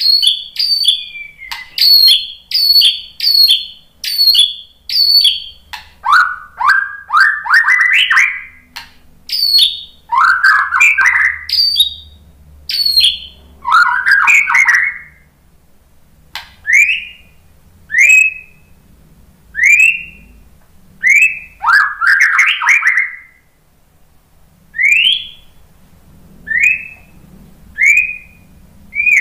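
White-rumped shama singing: loud, varied phrases of sharp whistles, roughly one a second, then dense chattering runs. Near the middle the song changes to single short rising whistles about once a second, broken by one more chattering run.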